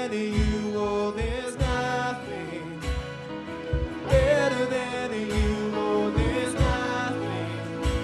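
Worship band playing a song: chords with a drum beat, and a voice singing a melody without clear words.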